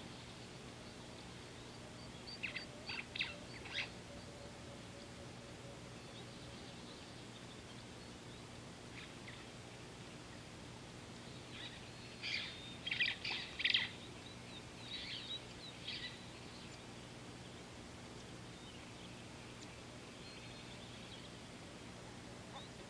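Wild bird calls: a quick group of sharp, high notes about two and a half seconds in, then a longer, louder series of such notes around the middle, over a steady faint low hum.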